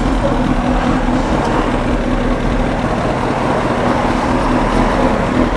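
Sport bike's engine idling at a standstill, mixed with steady road-traffic noise around it.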